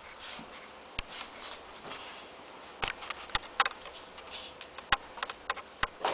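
Kittens scrabbling and batting inside a cardboard box: scattered light taps and scratches on the cardboard, with faint rustling in between.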